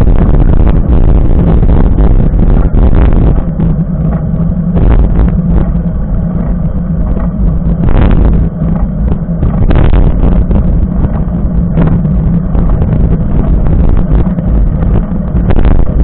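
Wind buffeting the microphone of a camera mounted on a mountain bike's handlebars while riding on asphalt: a loud, continuous low rumble with irregular gusty spikes.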